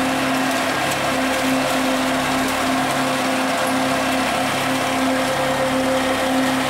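A fishing boat's engine and deck machinery running steadily: a droning hum that throbs about twice a second, over a hiss.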